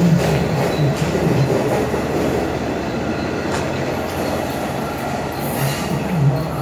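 Long Island Rail Road bi-level passenger coaches rolling past at close range as the train pulls out of the station, a steady low rumble of wheels on rail with a few clacks over rail joints.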